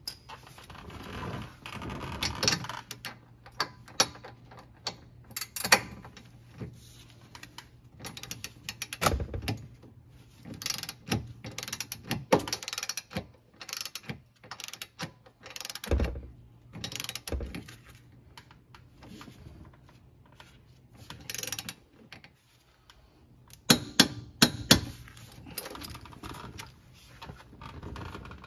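Click-type torque wrench ratcheting in short, irregular runs of clicks, with knocks of tools on metal, as a sway bar link's lock nut is tightened to 65 foot-pounds.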